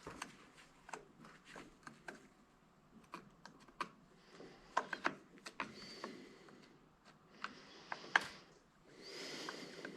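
Irregular light clicks and taps of small metal parts and hand tools as an old electric angle grinder is taken apart for scrap, with a short scraping sound near the end.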